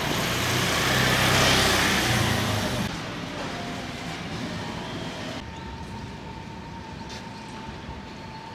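Street sound with a motor vehicle passing close, loudest in the first three seconds, then quieter outdoor background that changes abruptly twice.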